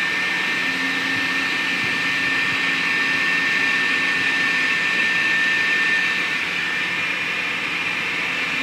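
Steady fan-like hiss with a constant high-pitched whine running through it, unchanging throughout.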